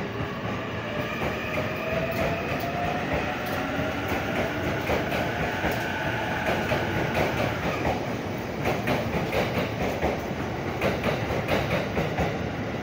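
Limited Express Tokiwa electric train moving along the platform and gathering speed. Its motor whine rises in pitch over the first few seconds, then the wheels set up a rhythmic clatter over the rail joints that grows toward the end.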